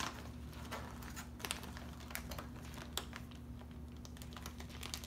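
Clear plastic zip-top bags rustling and crinkling as they are handled, with scattered light clicks.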